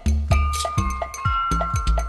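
Rhythmic percussion music: deep drum hits that drop in pitch, about four a second, with sharp clicking strikes and a few sustained high tones over them.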